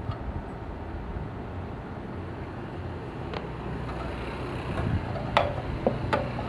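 Small Krisbow petrol generator engine running steadily, with a few sharp clicks or knocks over its hum.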